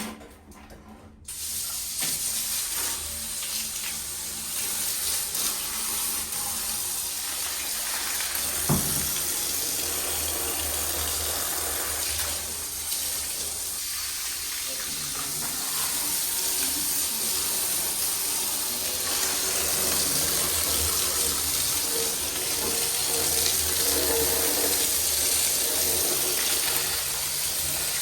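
Water running steadily from a tap, starting suddenly about a second in.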